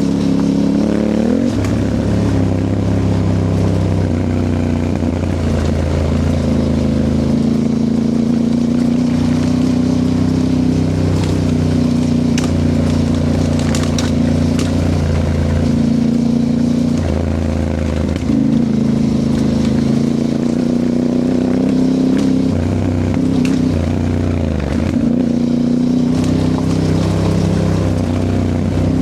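Aprilia Tuareg 660's parallel-twin engine under hard throttle off-road, its pitch rising through the revs and dropping back at shifts and lifts of the throttle several times. Scattered clicks and scrapes from the dirt trail come through alongside it.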